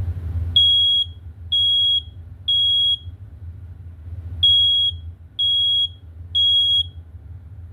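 Family Guard FG888D smoke alarm sounding on test: a high-pitched beep in two groups of three, with a short pause between the groups. This is the temporal-three alarm pattern.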